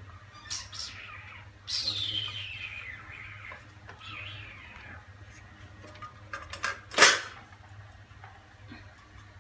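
Baby monkey giving high-pitched squeals that fall in pitch, one long one about two seconds in and a weaker one about four seconds in. A single sharp knock comes about seven seconds in.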